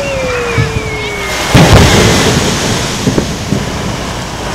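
A fireworks shell whistling with a falling pitch. About a second and a half in comes a single loud boom from its aerial burst, which rolls on for about a second.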